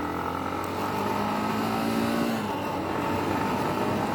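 SYM motorbike's engine running under way, its note rising in pitch and easing off a little after two seconds in, over a steady rush of wind and road noise.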